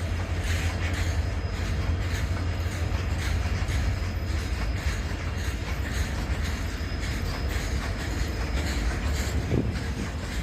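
Indian diesel locomotive engine chugging with a steady deep rumble.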